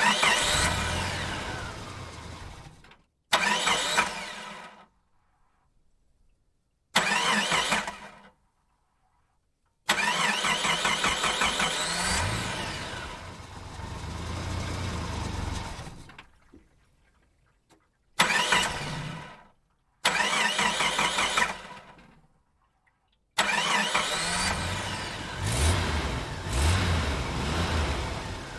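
A vehicle engine is started in a series of separate takes with silent gaps between them. Each take begins suddenly as the engine catches and then fades away or cuts off. A longer take about ten seconds in revs up once. From about twenty-three seconds the engine keeps running, revved several times.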